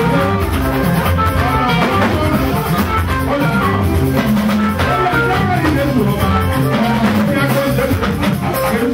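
Live band playing gospel music: drum kit and guitar over a steady beat.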